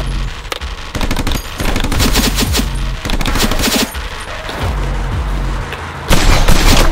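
Rapid bursts of gunfire-style shots, loud and repeated, over action music with a heavy bass. The loudest burst comes about six seconds in.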